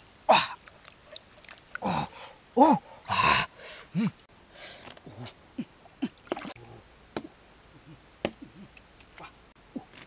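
Frogs croaking in a string of short calls that bend up and down in pitch, loudest in the first four seconds, then fainter and sparser, with a few sharp clicks.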